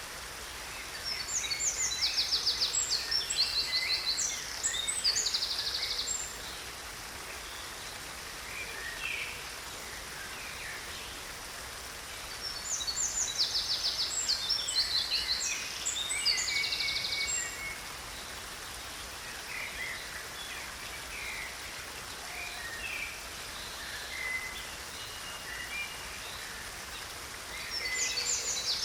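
Birds singing: three loud bouts of rapid, high trills and chirps, each lasting about five seconds and coming roughly every twelve seconds, with scattered quieter calls in between over a steady background hiss.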